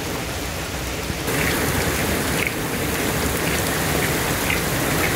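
Heavy rain falling steadily, a dense even hiss of rain on surfaces, growing a little louder about a second in.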